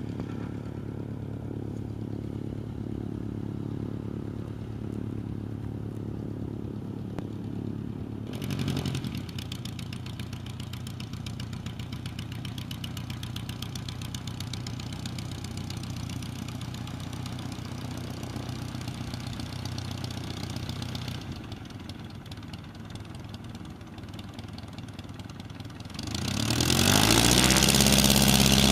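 Light aircraft's propeller engine idling steadily as the plane taxis on grass. Near the end the engine speeds up and gets much louder.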